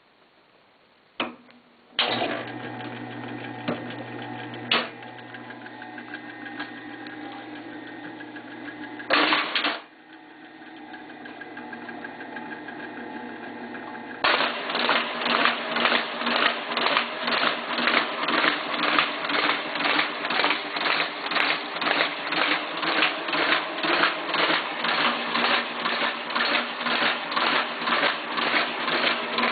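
AB Dick Model 217G spirit duplicator (ditto machine) making copies. A click comes first, then the machine starts running with a steady hum and a few knocks. About fourteen seconds in it breaks into a fast, even mechanical clacking as it cycles through copies.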